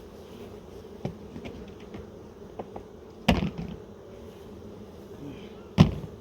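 Honey bees buzzing steadily around an open hive, with a few light clicks and two loud knocks, one about three seconds in and a louder one near the end, as honey frames and hive boxes are handled.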